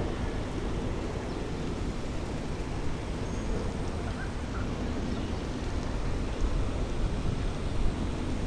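Steady low rumble of wind buffeting the camera microphone, with no distinct event standing out.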